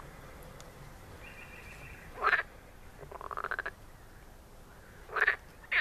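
Frogs calling at night: three short croaks, and one quick rattling call that rises in pitch partway through.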